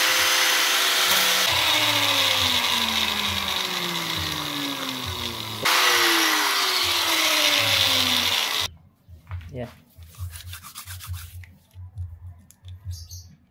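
Blue PVC pipe being cut into thin rings with a cutting tool: a loud, steady cutting noise whose pitch keeps sliding down, in two stretches, the second one stopping abruptly about nine seconds in. After that come light clicks of small plastic pieces being handled.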